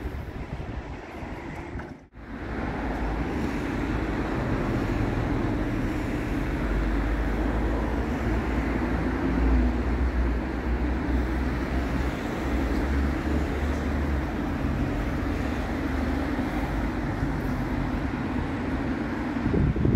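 Steady city street noise of passing traffic, with wind rumbling on the microphone. It drops out briefly about two seconds in, then runs on evenly with no distinct events.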